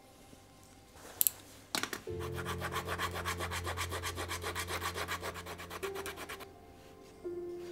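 A sharp tap about a second in, then rapid, even back-and-forth rubbing strokes by hand on the shoe, about eight a second for some four seconds, which stop abruptly.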